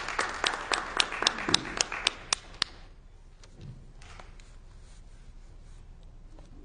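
Congregation applauding, with sharp claps close by at about four a second, dying away a little under three seconds in.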